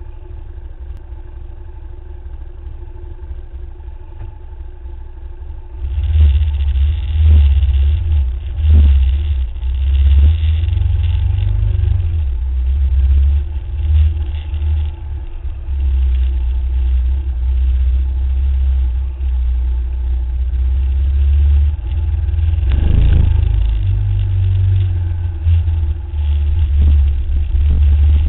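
Dual-sport motorcycle ridden along a gravel and dirt byway, its engine running steadily under the rider. About six seconds in the sound gets much louder and turns into a heavy, uneven low rumble as the bike gets under way.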